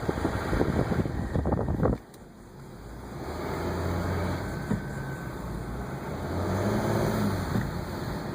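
Mercedes ML320 CDI diesel with a clunking noise from the drivetrain, which the uploader puts down to the transmission. For about two seconds there is a dense rattle of knocks that cuts off abruptly, then the engine runs steadily with one further knock about halfway through.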